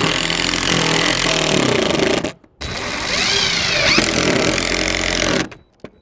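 DeWalt 20V cordless impact driver driving a long screw through a wooden board. It runs in two long pulls of the trigger, with a brief stop about two and a half seconds in, and cuts off near the end.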